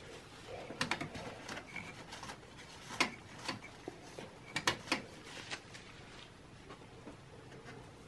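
Light clicks, taps and glove rustling from handling the processor and socket parts inside an open Dell Precision T5500 workstation as the CPU is lifted out of its socket. There are several short clusters of clicks, and the sharpest comes about three seconds in.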